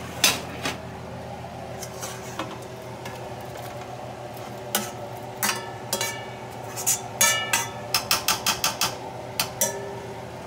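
A metal spoon clanks and taps against a skillet and the rim of an aluminium stockpot as fried sausage slices are tipped and scraped from the pan into the pot. There is one sharp clank about a quarter-second in, then from about five seconds in a run of short ringing metal knocks, coming quickest, about five a second, around eight to nine seconds.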